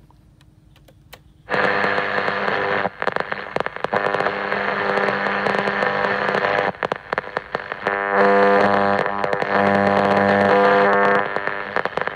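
Static hiss and crackle with a steady buzz from a BASF-badged Aiwa TPR-201 radio-cassette's speaker, starting about a second and a half in, as the tuning dial is turned across the long-wave band. No station is picked up.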